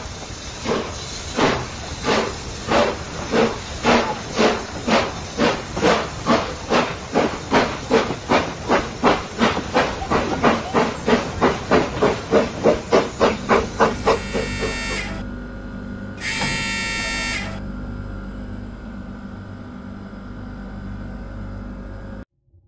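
Steam locomotive pulling away with its train: exhaust chuffs that quicken steadily as it gathers speed, then two blasts of the whistle and a steady rolling rumble, which cuts off suddenly near the end.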